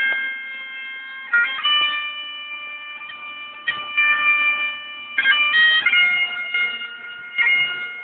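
Bagpipes playing a slow tune: long held chanter notes over a steady drone, with quick grace-note flourishes at each change of note.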